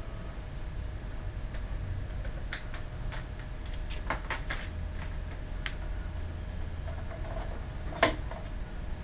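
HP Compaq dx2000 desktop PC running as it boots into Windows XP: a steady fan hum, with scattered light clicks and one louder click about eight seconds in.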